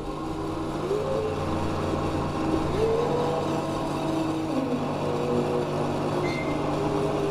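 Oil-well pumpjack running: a steady low hum from its drive, with long squeaks that slowly rise and fall in pitch as the beam works up and down.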